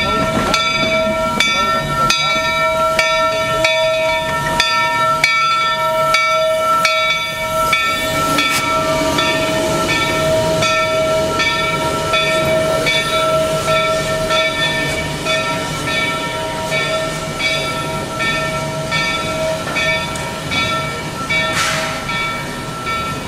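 Rio Grande Southern No. 41, a narrow-gauge 2-8-0 steam locomotive, running slowly with a steady high whine and a soft regular beat about every two-thirds of a second. A brief hiss comes near the end.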